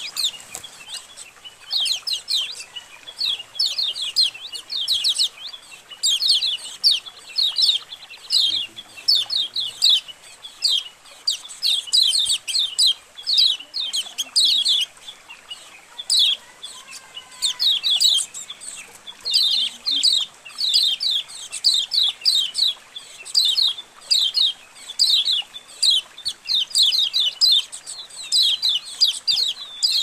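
A flock of kecial kuning (white-eyes) chattering as a colony: many high, quick chirps in rapid falling runs, overlapping almost without a break.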